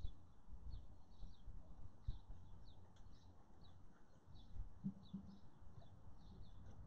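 Small birds chirping in the trees, short high notes repeating a few times a second, with faint low thumps underneath.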